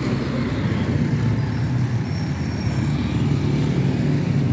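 A motor vehicle's engine running steadily, a continuous low hum with street traffic around it.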